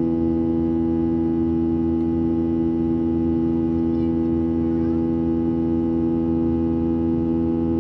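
Boeing 737-800's CFM56-7B jet engines heard from inside the cabin, running at steady power: a constant drone made of several strong held tones over a low rumble.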